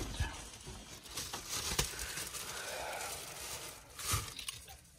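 Thin plastic bag rustling and crinkling as it is handled, with a couple of short faint knocks.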